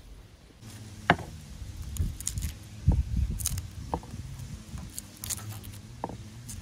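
A garlic bulb being broken apart by hand and its cloves worked with a knife on a wooden cutting board: dry papery skins crackling, with a string of sharp clicks and knocks as cloves snap off and the knife and cloves tap the wood.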